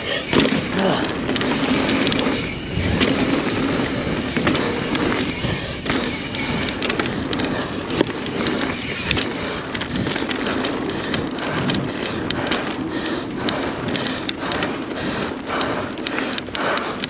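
Mountain bike rolling fast down a dirt trail: a steady rush of tyres on dirt, with frequent rattles and clacks from the bike over bumps, coming thicker after about seven seconds.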